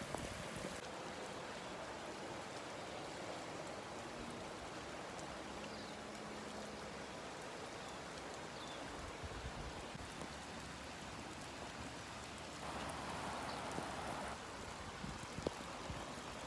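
Steady rain falling, a little louder for a moment near the end.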